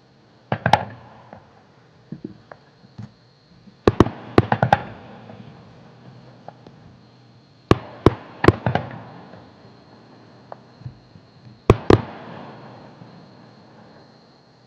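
Aerial fireworks shells bursting: sharp bangs in quick groups of two to four, each with a rolling echo that dies away. There are several clusters a few seconds apart, the loudest around four, eight and twelve seconds in.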